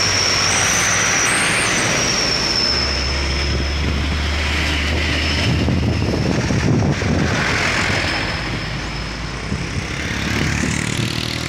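Heavily loaded diesel trucks, a Hino and then a Mitsubishi, drive past close by with engines running and tyres rolling on asphalt. The truck engine drone is loudest a few seconds in. A thin high whine sits over the traffic noise early on, and a motorcycle passes near the end.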